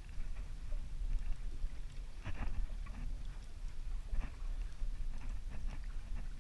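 Water slapping against a small boat's hull in a few irregular splashes, strongest about two seconds in and again near the four-second mark, over a steady low rumble.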